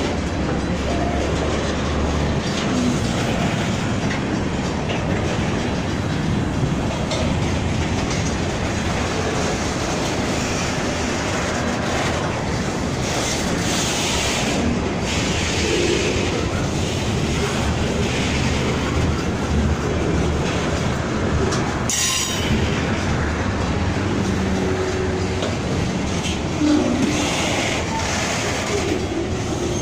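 Freight train cars rolling past close by: a steady rumble and clatter of steel wheels over the rail joints, with a single sharp knock about two-thirds of the way through.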